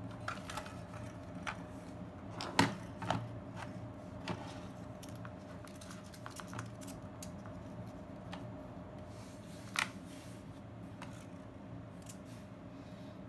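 Scattered plastic clicks and knocks of a Kodak KB-10 35mm point-and-shoot camera being handled and set down on a cutting mat, the loudest a sharp click about two and a half seconds in and another near ten seconds in.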